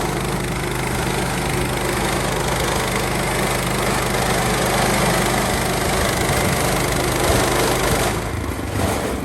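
Portable band sawmill's gas engine running steadily under load, the band blade sawing through a log; the sawing noise drops away about eight seconds in.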